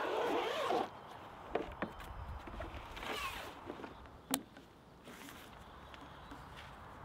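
Zipper on the fabric case of a folding EcoFlow solar panel being pulled open, one long zip in the first second and a shorter one about three seconds in. A sharp click follows just after four seconds as a clip is unhooked from the panel's grommet, then light handling sounds as the panel is unfolded.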